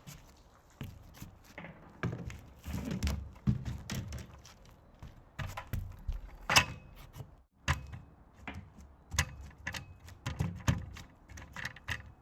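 Irregular clicks, knocks and thumps from handling a fishing rod and a hooked bass, with a louder knock about six and a half seconds in.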